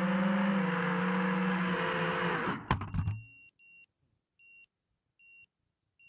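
FPV quadcopter motors and propellers whining, the pitch wavering with throttle, heard from the drone's own camera. It touches down with a few sharp knocks about two and a half seconds in and the motors stop; then short high beeps repeat about once every 0.8 seconds.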